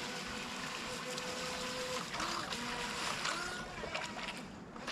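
Small brushed electric motor of an RC jet sprint boat whining at a steady pitch, then wavering in short rises and falls in pitch, over a steady hiss of wind and water. It fades a little near the end.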